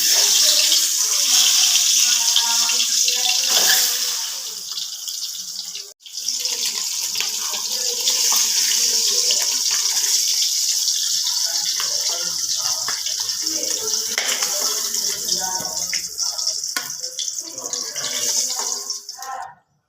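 Water running steadily from a kitchen tap into a sink, with a brief cut about six seconds in before it runs on, and stopping just before the end.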